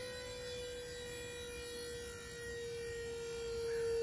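A steady whine from the hydraulic pull rig loading a glue-in bolt sideways. It drops slightly in pitch and grows louder near the end.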